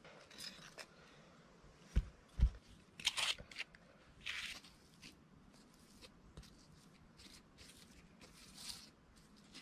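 Bricks, sandy soil and clay handled by hand: two dull thumps about two seconds in, then a run of short gritty scrapes and crunches.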